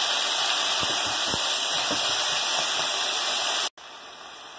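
Chopped onion and tomato sizzling in hot oil in a steel pan: a loud, steady hiss with a few faint scrapes of a wooden spatula. About three-quarters of the way through it cuts off abruptly, and a much quieter sizzle carries on.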